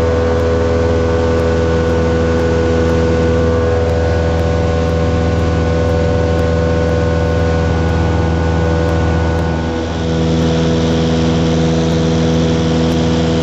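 Piston engine and propeller of a small high-wing single-engine plane droning steadily in cruise, heard inside the cabin. Near the end, added rushing air comes in.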